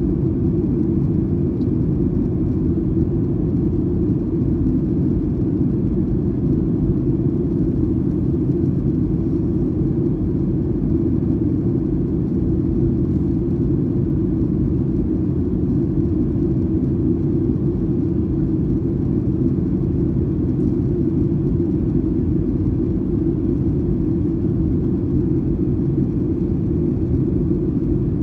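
Steady cabin noise inside a Boeing 737-800 from a window seat over the wing: the constant low rumble of its CFM56-7B turbofan engines and the airflow past the fuselage.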